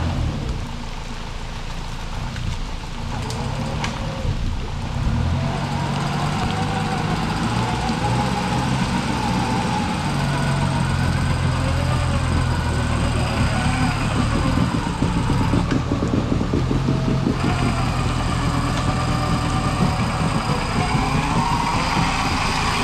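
Off-road 4x4's engine running steadily while its winch pulls it up a muddy slope, a wavering whine rising over the engine from about five seconds in.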